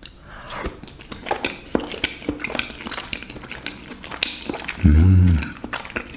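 Close-up chewing of a crêpe with caramel and banana: soft wet mouth clicks throughout, with a short hummed "mmm" of enjoyment about five seconds in.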